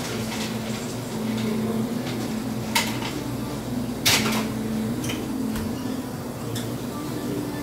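A steady low hum with a few sharp knocks and clinks, the loudest about three and four seconds in.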